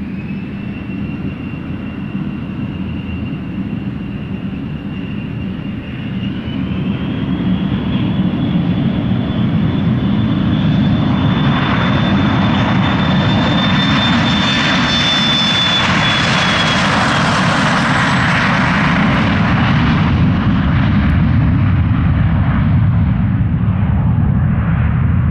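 Canadair Challenger 350's twin Honeywell HTF7350 turbofans spooling up to takeoff thrust: a whine rising in pitch over the first several seconds over a low rumble, growing louder about seven seconds in as the jet accelerates past on its takeoff roll. The whine fades late on while the low rumble of the engines stays loud.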